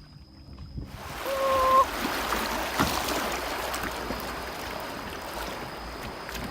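River water rushing and splashing around a small paddled boat, a steady noisy wash that starts suddenly about a second in. Over it, a short steady tone sounds briefly just after the water starts, and a single click follows a second later.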